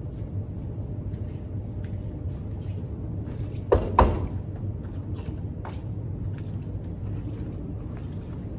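Two sharp knocks about four seconds in, a third of a second apart, over a steady low hum, with a few faint clicks scattered around them.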